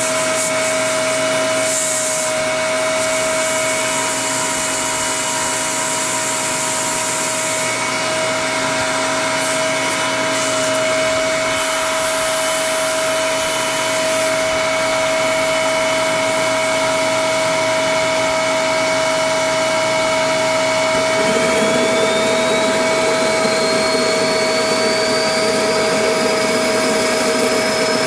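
Turbocharger-based homemade gas turbine jet engine running, a steady whine over a loud rush of air and combustion. After about twenty seconds a high whine starts climbing steadily in pitch as the turbine speeds up, and the lower rush grows rougher.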